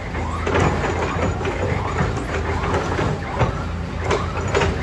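Diesel engine of an earth-moving machine running steadily while it loads mud, with several sharp knocks and clanks scattered through.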